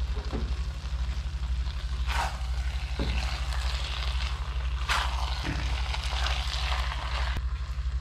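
Noodles and vegetables being stirred and tossed in a wok with a silicone spatula, two sharper strokes about two and five seconds in, with light sizzling in between. A steady low hum runs underneath throughout.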